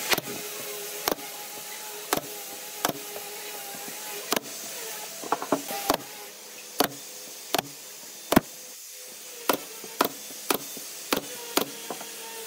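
Nail gun firing into pine edging: about fifteen sharp shots at uneven spacing, roughly one a second, with a quick run of several a little after five seconds, over a steady background hum.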